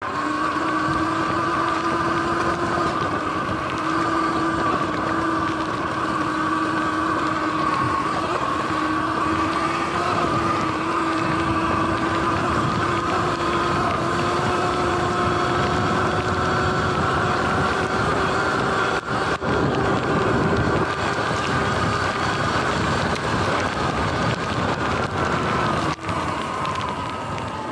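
Sur-Ron electric dirt bike riding fast: a steady, high electric-drive whine over rushing wind and tyre noise. Near the end the whine falls in pitch as the bike slows.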